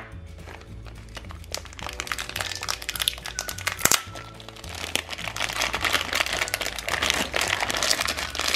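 Small clear plastic bag of plastic Play-Doh extruder tips crinkling as it is picked up and handled, the crinkling growing denser and louder from about two seconds in. Background music plays underneath.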